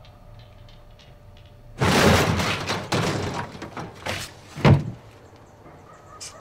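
Floor hatch over a cellar pit being pulled open: a loud scraping clatter about two seconds in, then a single heavy thud a couple of seconds later.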